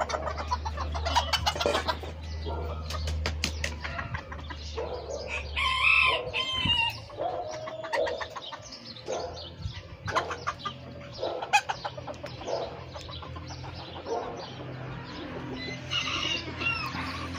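Young roosters in wire pens crowing and clucking: one crow about five seconds in, a fainter one near the end, and short clucks in between.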